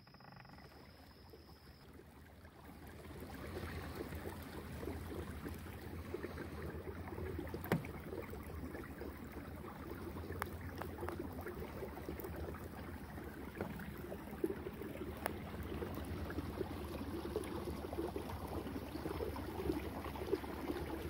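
A kayak's motor running steadily with water rushing and gurgling along the hull. The hum and water get louder about three seconds in, and there are a few sharp knocks.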